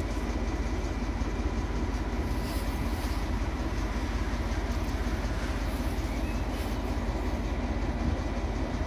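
British Rail Class 14 diesel-hydraulic locomotive D9525 running as it pulls away, its Paxman Ventura diesel engine working at a steady, even level.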